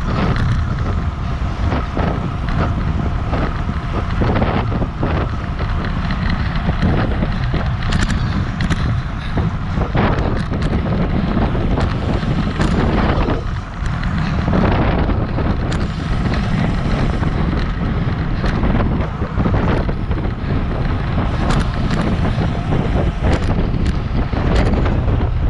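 Wind buffeting a handlebar-mounted action camera's microphone on a road bike moving at about 23 mph: a steady heavy low rush, with scattered short clicks and knocks over it.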